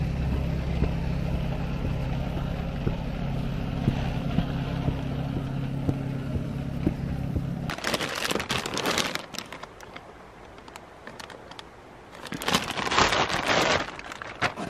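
An engine runs steadily for about the first eight seconds, then cuts off. After that, a plastic bag crinkles and rustles as it is pulled off a pair of plastic snowshoes, with a louder burst of crinkling near the end.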